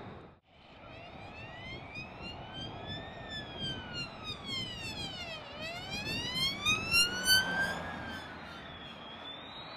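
F-15E Strike Eagle jet on final approach with gear down, its twin engines' rushing noise carrying tones that sweep up, fall and rise again in pitch as the jet closes in. It grows loudest a little past the middle.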